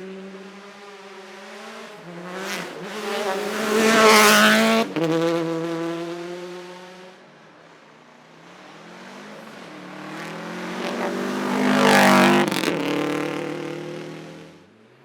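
Rally cars at full throttle passing close by, loudest about four seconds in and again about twelve seconds in. Between the passes the engine pitch rises and falls with the revs.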